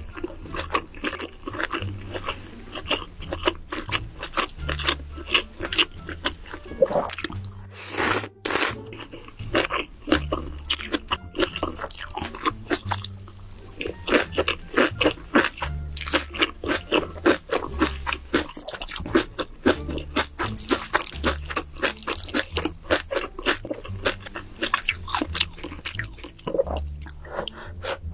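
Close-miked eating of spicy seafood and noodles: steady wet chewing with many crisp crunching clicks. Background music with a stepping bass line plays under it.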